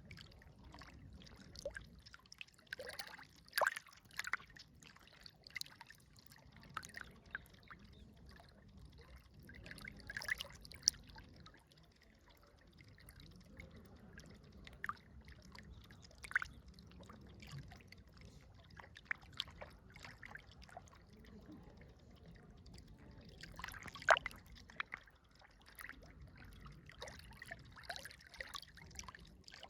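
River water trickling, with many small irregular splashes and drips over a steady low rush.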